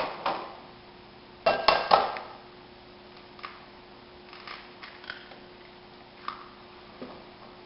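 Sharp clinks of kitchenware against a glass mixing bowl on a stone countertop, a cluster of them about a second and a half in, then a few light ticks and plastic handling sounds as a gallon milk jug is opened over the bowl. A faint steady hum runs underneath.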